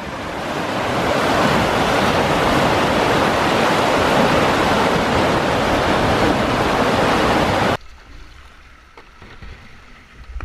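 Whitewater rapids: churning river water rushing loudly and steadily. It cuts off abruptly near the end to a much quieter flow of calmer water, with a few faint light knocks.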